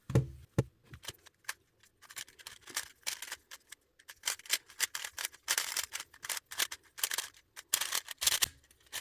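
Rubik's Speed Cube, a magnetic plastic 3x3 speed cube, being turned rapidly during a timed solve: a dense, irregular clatter of layer turns. The cube is loose and a little catchy as it comes out of the box. A couple of soft knocks come right at the start.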